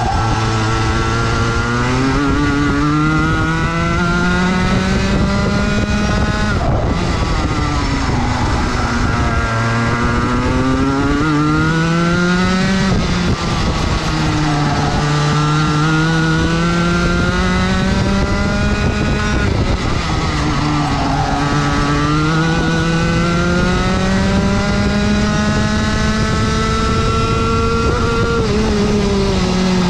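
Rotax Max 125cc two-stroke racing kart engine heard close up from the kart itself, its pitch climbing as it accelerates down each straight and falling off into each corner, about five times over.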